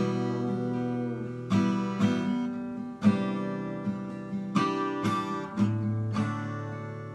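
Acoustic guitar playing the instrumental close of a slow song: strummed chords, each left to ring before the next.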